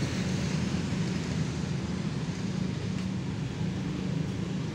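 Steady low rumble of road traffic, with motorbikes passing on the streets around the park.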